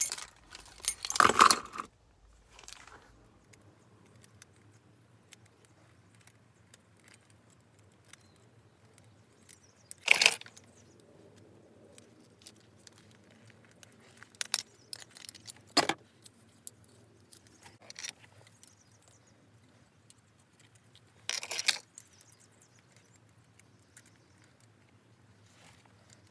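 A bunch of keys jangling and clinking in the hands while a new keychain is fitted onto the key ring. The clatters come in separate short bursts several seconds apart, the loudest about a second in and about ten seconds in.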